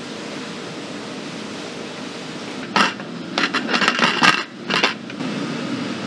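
Aluminium pressure cooker lid being set on the pot and twisted shut: a run of sharp metallic clanks and scrapes about three seconds in, over a steady kitchen hum.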